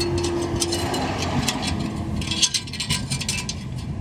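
A thin flexible steel band and a sheet-metal shield being fitted around an exhaust pipe: light metallic clicking and rattling, with one sharper click about halfway through, over a low steady rumble.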